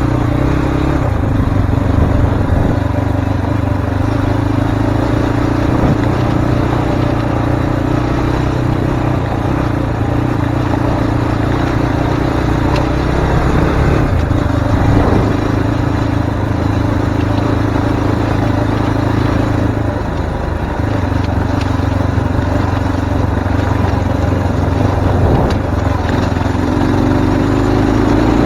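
Zongshen RX3 Cyclone motorcycle's single-cylinder engine running at a steady speed while riding, mixed with wind and road noise. The engine eases off briefly around the middle and again about two-thirds of the way through, then revs up near the end.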